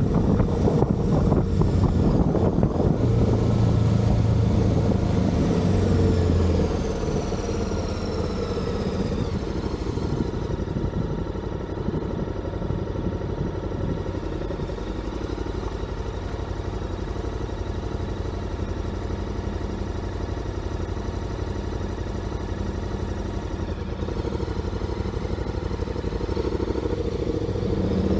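Motorcycle engine running as the bike is ridden downhill. It is louder for the first six seconds or so, then settles into a lower, steady note, and picks up again near the end.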